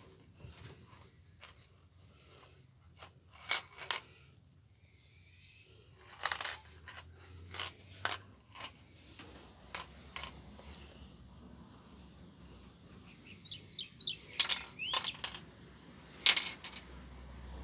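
Aerosol spray-paint can being handled: irregular sharp metallic clicks and clinks, with a few louder knocks scattered through.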